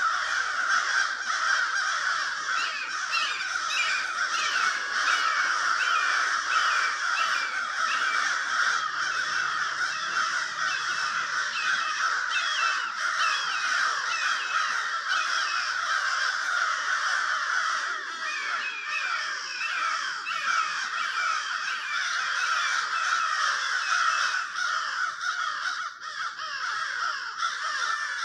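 A large flock of crows cawing all at once, many overlapping calls that never stop: crows mobbing a red-shouldered hawk.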